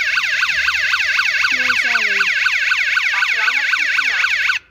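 Patrol Hawk indoor strobe siren sounding on test, a loud electronic warble sweeping rapidly up and down about five times a second, cutting off suddenly near the end. It is the siren responding to the alarm panel that has just been re-learned to it.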